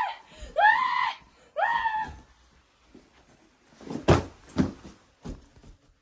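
A child screaming in short, high-pitched shrieks, twice in the first two seconds. About four seconds in come three heavy thumps a half-second or so apart.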